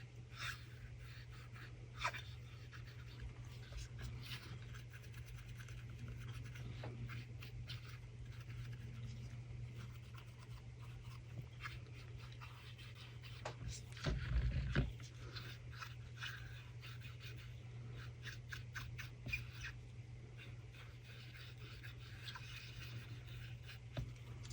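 Small scattered clicks, taps and scratches of hands working with a silicone mould and chameleon flakes at a work table, over a steady low hum. A louder knock comes about fourteen seconds in.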